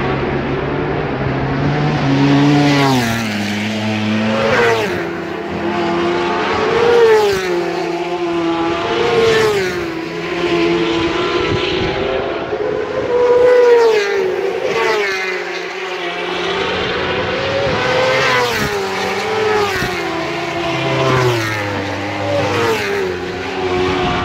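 Racing superbike engines running hard around the circuit, their pitch climbing and dropping over and over with gear changes and throttle lifts.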